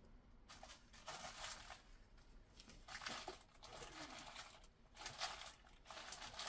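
Faint crinkling and rustling of bead packets being rummaged through in search of spacer beads, in several short bursts.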